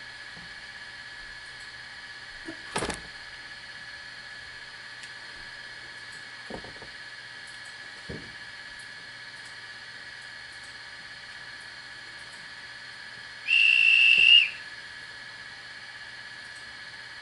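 Sound decoder in a Hornby OO gauge Class 71 model electric locomotive, playing the stationary locomotive's steady electric hum with a few short clicks and clunks. About 13 seconds in comes a single high horn blast of about a second, the loudest sound.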